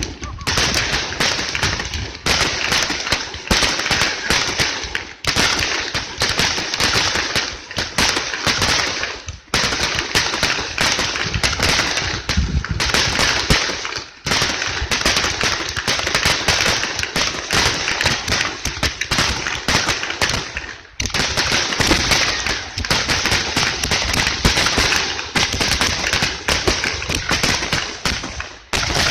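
Fireworks display: a dense, rapid stream of cracking and popping bursts, nearly continuous, with a few brief lulls.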